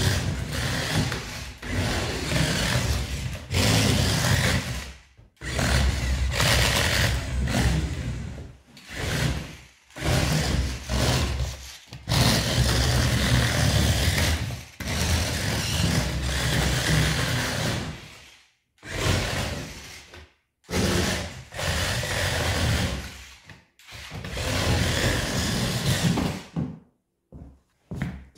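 Sonic Prime RC toy's small electric drive motor and plastic gears whirring in repeated bursts of one to several seconds, stopping and starting again as it is driven in spurts across a wooden floor.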